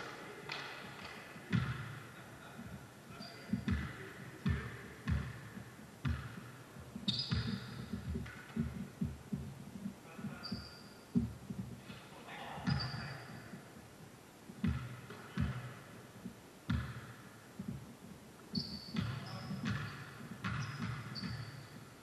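Basketball game play: a ball bouncing on the court in repeated, irregular thuds, with short high sneaker squeaks on the floor now and then and players' voices calling out.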